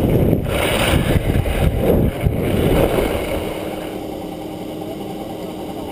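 Skis sliding over groomed snow with wind rushing across the camera microphone: a loud, even rumble that eases off about four seconds in.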